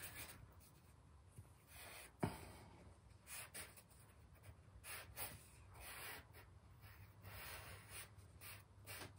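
Compressed charcoal scratching across newsprint in faint, irregular short strokes, with one sharper tap about two seconds in.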